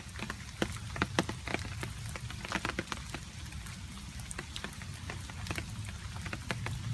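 Rain with water drops dripping: many irregular, separate drips striking a surface, some louder and closer than others, over a low steady rumble.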